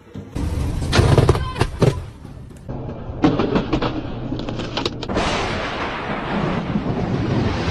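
Lightning strikes picked up by a security camera's microphone: a cluster of sharp thunder cracks about a second in and another sharp crack about three seconds in. A steady rushing hiss follows from about five seconds.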